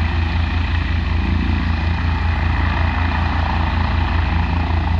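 Air ambulance helicopter hovering low as it takes off: a loud, steady rotor beat with turbine noise.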